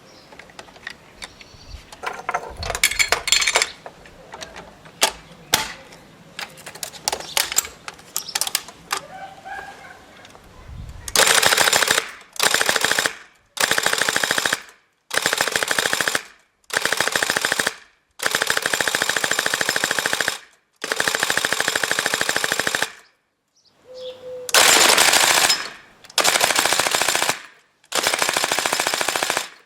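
Shoei MG42 airsoft replica machine gun firing dry, with no BBs, in a series of about nine very rapid full-auto bursts, each one to two and a half seconds long with short pauses between. These come after about ten seconds of sharp mechanical clicks and clacks.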